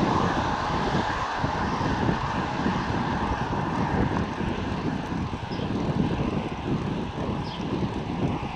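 Wind rushing over the microphone of a handlebar-mounted camera on a moving bicycle: a steady rushing noise with an uneven low flutter.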